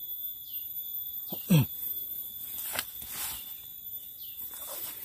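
A man's short, loud exhale with a falling grunt about a second and a half in, from the effort of climbing a steep trail. Under it, undergrowth rustles as he pushes through it, and a few faint short high chirps sound.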